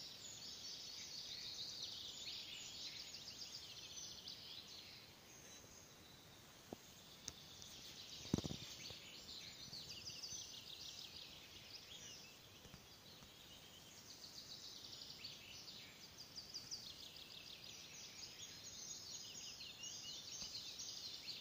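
Several songbirds singing at once in high, fast, overlapping phrases, among them a red-breasted flycatcher singing in the background. A single low thump about eight seconds in.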